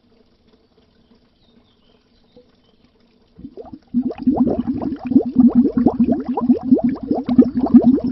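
Underwater air bubbles: after a few seconds of near quiet with only a faint low hum, a dense stream of bubbling starts about four seconds in. It is made of many short, rising blips a second.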